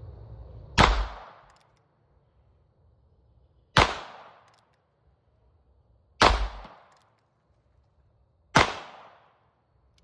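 .22 LR gun firing CCI Mini-Mag hollow-point rounds: four single shots spaced about two and a half to three seconds apart, each with a short echo tail.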